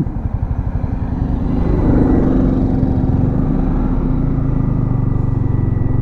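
Yamaha MT15's single-cylinder engine putting at a low idle with a pulsing beat, then pulling away and settling into a steady, louder running note from about two seconds in.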